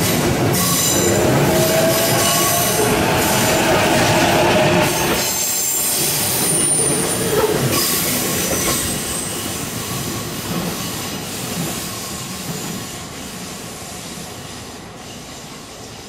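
JR East E233-series electric commuter train passing close by: wheel and rail noise with a rising motor whine, loudest over the first few seconds. A brief high wheel squeal comes partway through, then the noise fades steadily as the last car moves away.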